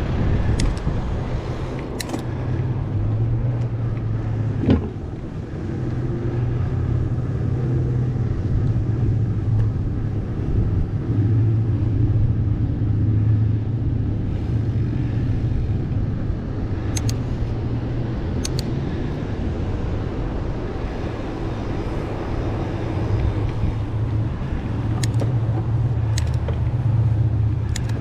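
Steady low rumble of a Specialized Stumpjumper mountain bike rolling along, with a few sharp clicks scattered through.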